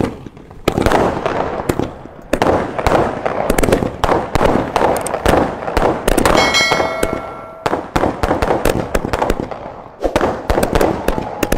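Boxed multi-shot aerial firework batteries firing: a sharp crack as they catch, then a rapid, continuous series of launch thumps and shells bursting overhead. A steady ringing tone sounds for about a second a little past the middle.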